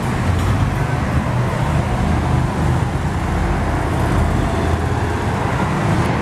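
Steady road traffic noise: motor vehicles running close by with a continuous low engine rumble.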